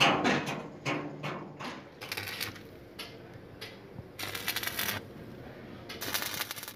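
Stick arc welding on steel, heard as three short bursts of crackling from the arc, about two seconds in, again after four seconds and near the end. A few sharp metallic knocks come at the start.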